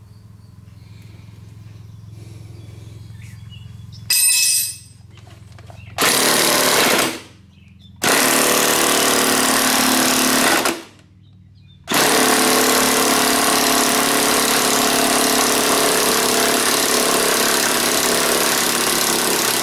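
Cordless impact wrench hammering on a puller's centre screw, straining to pull off a badly rusted, stubborn lawnmower blade adaptor. It comes in a short burst about four seconds in and two longer bursts, then runs unbroken from about twelve seconds on.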